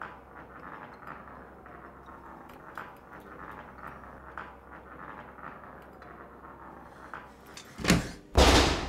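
Small glass marble rolling on a hard floor: a faint, gritty rolling with light clicks. Near the end come two sudden loud noises, the second lasting about half a second.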